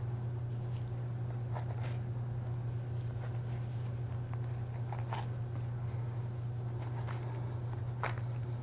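A knife cutting through hide and tissue around a doe's udder, a few short, sharp snicks over a steady low hum.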